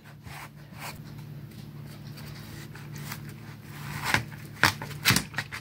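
Kitchen knife slicing through a honeydew melon on a plastic cutting board, with about three sharp knocks of the blade on the board near the end.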